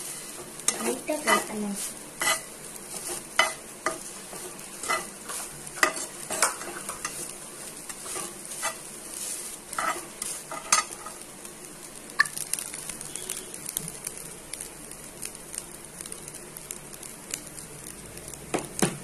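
Grated coconut sizzling in ghee in a non-stick frying pan while a slotted steel spatula stirs it, scraping and tapping against the pan in repeated strokes, frequent in the first half and sparser later. The coconut is being lightly roasted until it starts to change colour.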